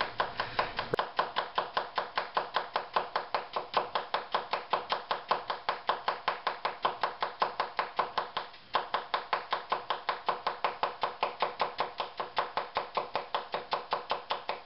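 Chef's knife slicing a red onion paper-thin on a plastic cutting board: a fast, even run of knife taps on the board, about six a second, with one short break a little past the middle.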